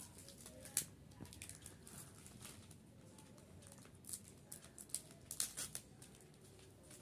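Plastic courier mailer bag being peeled and torn open by hand: faint crinkling and sharp crackles of the plastic, one sharp crackle about a second in and a cluster around five seconds in.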